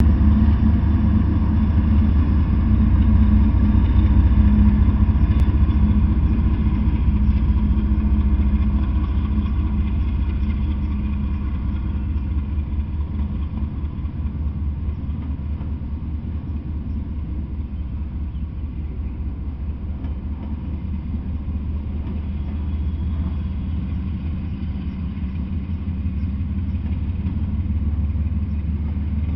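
Freight train passing: a diesel locomotive's engine hum over a low rumble, easing off after about ten seconds as autorack cars roll by with a steady rumble of wheels on rail.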